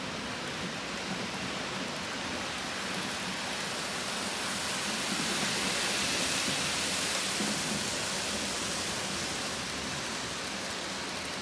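Model freight train running across a steel truss bridge on a model railway layout: a steady rushing hiss of wheels and motor that swells as the train passes closest, about halfway through.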